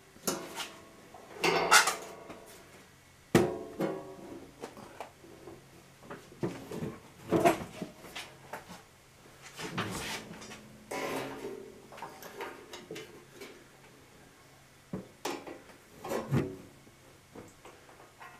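Thin aluminium sheet warbling and ringing as it flexes while being run through a bead roller, with scattered metallic clanks and clicks.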